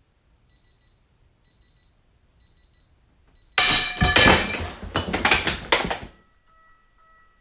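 Icon 3/8-inch drive ratchet's square drive anvil shearing off under about 276 ft-lbs with a sudden loud crack, followed by a few metal clanks and clatter as the handle and cheater bar give way. Before the break, the digital torque adapter gives short beeps about once a second as the load builds.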